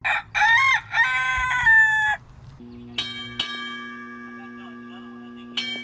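A rooster crows once, a cock-a-doodle-doo of several short notes ending in a long held note. A few bell-like chime strikes follow about three seconds in and again near the end, each ringing on with steady tones.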